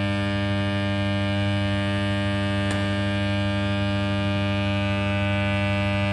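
Electric dental lab vibrator buzzing steadily under a freshly poured mould of soft dental plaster, shaking air bubbles up out of the mix.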